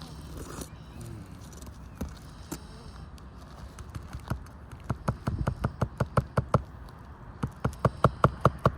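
Hammer tapping quickly on roofing nails during an asphalt shingle repair: two runs of sharp, ringing strikes, about six a second, with a short pause between them.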